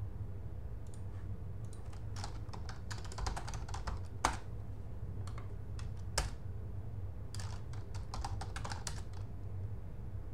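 Typing on a computer keyboard in two bursts of quick keystrokes, with two louder single clicks between them, over a steady low hum.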